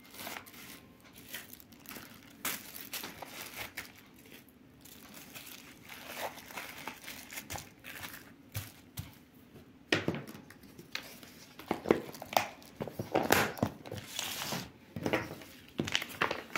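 Plastic cling film crinkling as wrapped pieces are handled and packed into a plastic container, in irregular crackles that grow louder and busier about two-thirds of the way through.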